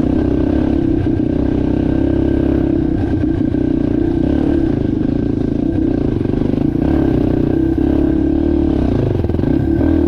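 Yamaha TT-R230's air-cooled four-stroke single-cylinder engine running under way at a fairly steady pitch, with a few light knocks over it.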